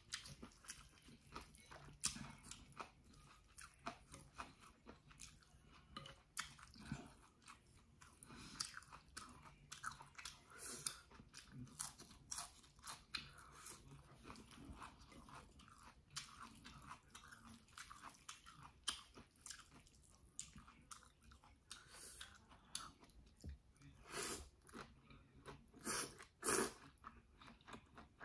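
Close-miked eating of chewy jjolmyeon noodles and leafy greens: irregular wet chewing, mouth clicks and small crunches, with a few louder slurps and bites near the end.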